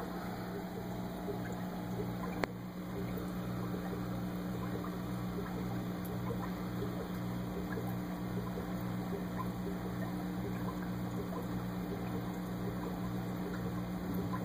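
Aquarium air pump humming steadily, its low drone pulsing about one and a half times a second, with faint bubbling and popping from the volcano ornament's air stone. One sharp click about two and a half seconds in.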